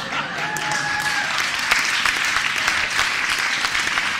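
Audience applause, building about a second in and then holding steady, with a short held high tone over it near the start.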